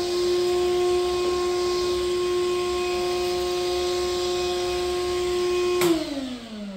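Hercules shop vac motor running in blower mode: a steady high whine over a rush of air. About six seconds in it clicks off and the motor winds down, its pitch falling.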